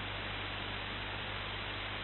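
Steady hiss with a low electrical hum, unchanging throughout; no distinct events are heard.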